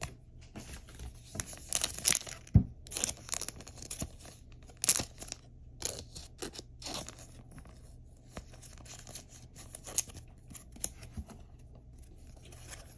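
Crinkling rustle of a thin clear plastic penny sleeve as a trading card is slid into it and handled, in short irregular bursts.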